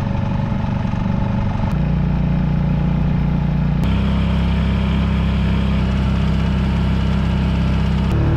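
Small Honda four-stroke outboard motor running steadily under way, with water rushing along the hull. The engine note steps abruptly to a slightly different pitch about two seconds in, again about four seconds in, and near the end.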